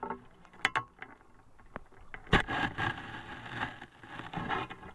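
Shallow lake water sloshing and splashing as someone wades through it, with a few sharp knocks, the loudest a little over two seconds in.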